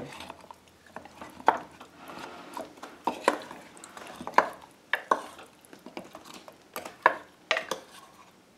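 Wooden spoon stirring meatballs and pineapple chunks in barbecue sauce in a ceramic slow-cooker crock, the spoon knocking against the crock at irregular moments, about once a second.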